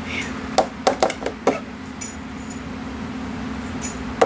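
Plastic food processor bowl, lid and blade being handled: a handful of sharp clicks and knocks in the first second and a half, over a steady low hum.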